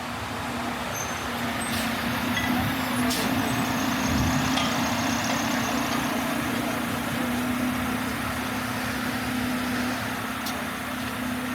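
City street traffic: a motor vehicle's engine with a steady low hum, over the even hiss of the street, growing louder a couple of seconds in with a brief deeper rumble.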